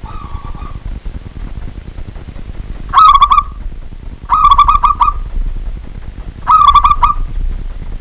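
Zebra dove (perkutut) cooing: a faint short call near the start, then three loud phrases of quick staccato coo notes, each under a second long and about a second and a half apart. A steady low rumble runs underneath.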